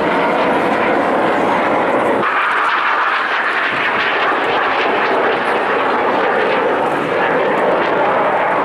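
Aircraft engine noise from a plane in flight: a loud, steady rushing sound. About two seconds in it changes abruptly, the low part dropping away and the sound turning higher.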